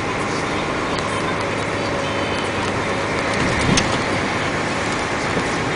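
Dump truck driving along a narrow paved road: steady engine and road noise, with one sharp knock a little past the middle.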